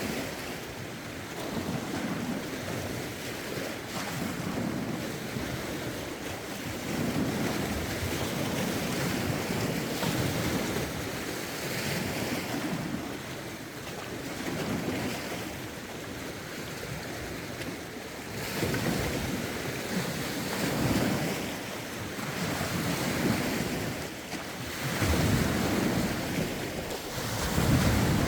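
Lake waves washing in one after another, a swell every couple of seconds, with a rough wind buffeting the microphone.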